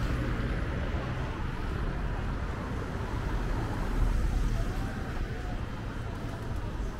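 Street traffic running along a brick-paved city road, with a car driving past close by about four seconds in, where the noise is loudest. Faint voices of passers-by are mixed in.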